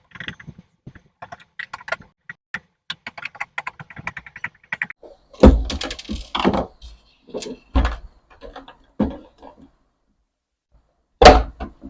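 Screws being backed out of a juicer-blender's plastic motor housing with a screwdriver: a run of small clicks and quick ticking. After that come several knocks and thuds as the plastic housing is handled and set down, the loudest about five and a half seconds in.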